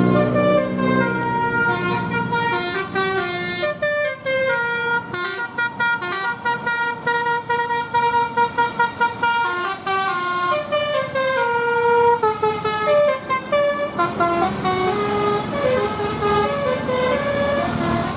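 Bus telolet horn, a Basuri multi-tone horn, playing a long melodic run of quick stepped notes that keep rising and falling in pitch.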